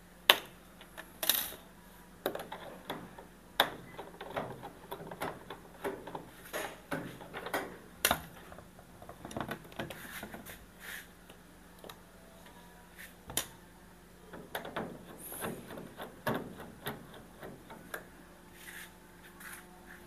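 Irregular clicks, taps and scrapes of a screwdriver and pry tool on the plastic top frame of an LG Inverter washing machine as screw-cover caps are pried off. The sharpest clicks come just after the start and about eight seconds in.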